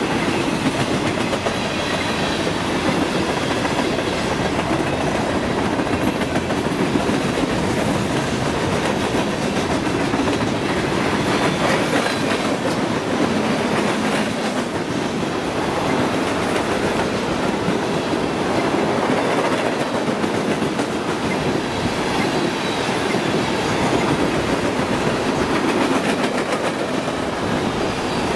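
Freight train cars rolling past, covered hoppers then tank cars, with a steady noise of steel wheels running on the rails.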